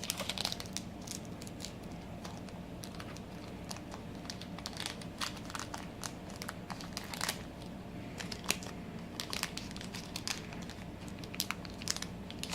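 Foil wrapper of a Pokémon booster pack crinkling and crackling as it is handled and torn open, in many short irregular crackles over a faint steady hum.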